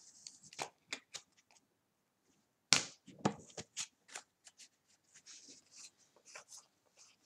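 Baseball cards handled and flicked through by hand: quick papery snaps and clicks, a louder knock about three seconds in, then a run of rapid flicks as a stack of cards is sorted.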